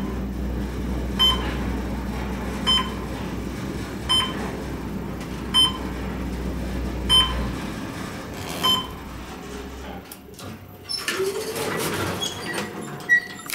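Schindler-modernized Westinghouse elevator car riding up with a steady low hum and ride noise, kind of noisy, with a short floor-passing beep about every second and a half, seven in all. About ten seconds in the car stops, the hum falls away, and the doors slide open.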